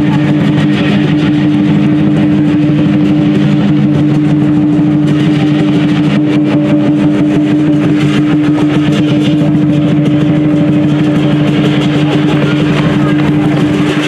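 Loud, continuous Chinese lion-and-dragon-dance percussion, a big drum with clashing cymbals and gongs played without a break, over a steady low drone.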